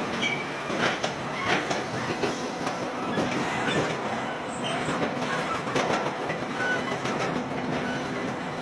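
Car body-shop assembly line machinery: a steady clatter of metallic clanks and knocks with brief high whines, from welding robots and conveyors moving car bodies.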